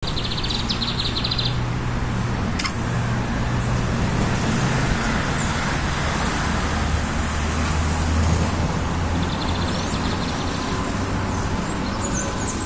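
Small birds singing: a quick high trill near the start and again near the end, with a few high chirps at the very end, over steady traffic noise from a nearby street. One sharp click a few seconds in.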